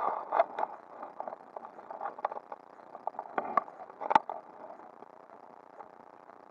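Close handling noise of fly line and reel: irregular clicks, rubs and scrapes as line is pulled off the reel and handled, with the loudest click about four seconds in, then dying away to a faint hiss.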